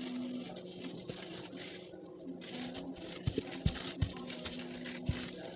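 Wooden rolling pin rolling and knocking on bread dough on a table, with a few soft knocks in the second half, over faint background music.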